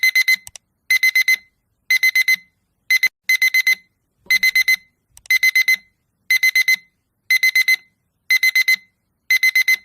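Electronic alarm clock beeping: quick groups of four high-pitched beeps, repeating about once a second.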